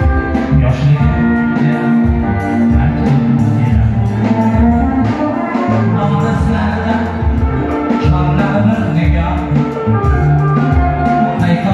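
A man sings into a microphone over a live band of synthesizer keyboard and electric guitar with a steady drum beat, all amplified through loudspeakers.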